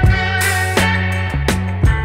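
Background music: an instrumental track with bass, guitar and drums keeping a steady beat.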